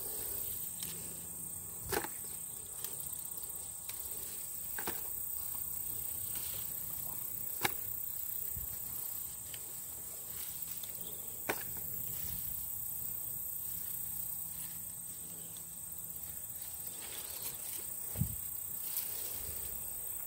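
Steady high-pitched chorus of insects singing in the garden. A few sharp snaps and clicks come every few seconds, from pepper plants being handled and picked.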